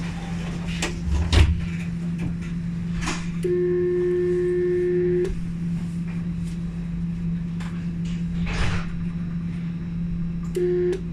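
Alstom Citadis 402 tram standing at a stop: its onboard equipment hums steadily, with a few sharp clicks and knocks. A steady buzzer tone sounds for nearly two seconds a few seconds in, and again briefly near the end.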